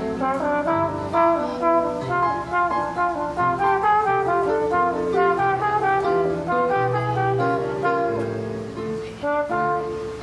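Slide trombone and electric keyboard piano playing jazz together. The trombone is to the fore in a busy line of quick notes.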